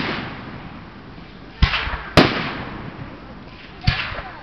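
Aerial firework shells bursting in a professional display: four sharp bangs, one at the start, two close together around the middle and one near the end, each trailing off in a rumbling echo.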